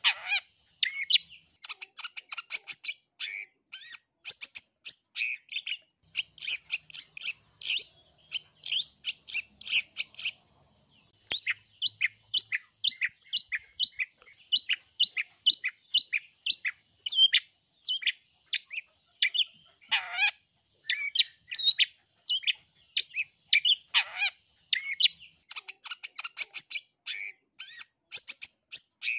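Long-tailed shrike (cendet) singing: a fast, nearly unbroken chatter of short, sharp, high notes, with a brief pause about ten seconds in and a few longer notes that slide steeply down in pitch, one at the start and two later on.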